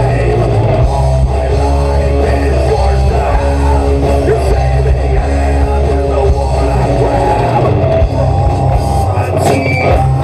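Live rock band playing loud, with electric guitars and drums; the deep bass drops out about eight seconds in.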